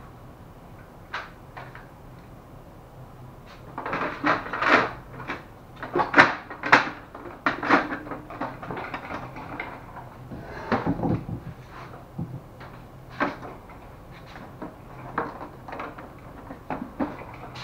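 Plastic clunks, clicks and knocks from an HP LaserJet 400 M401dn laser printer's casing and covers as the printer is pressed shut and shifted on a table. The knocks come thickest a few seconds in, and there is a heavier thud near the middle, over a faint low hum.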